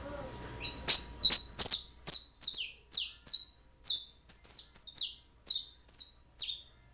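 Domestic canary singing a run of loud, short down-slurred notes repeated about two to three times a second, starting about a second in.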